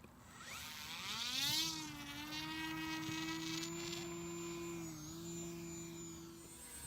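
Electric motor and propeller of an E-flite Timber RC plane, a high buzzing whine that rises in pitch as the throttle opens over the first couple of seconds. It then holds steady, with a brief dip in pitch about five seconds in.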